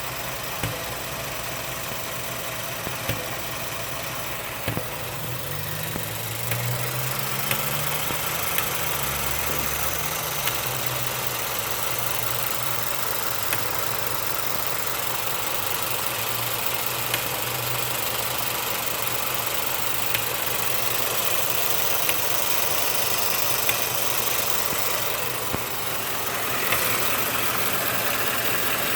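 Ford F-150's 5.0-litre V8 engine running, mostly at idle, with sharp ticks at irregular intervals of a second or few; this is the strange engine noise the owner is recording. The engine speed rises briefly about six seconds in and settles back a few seconds later.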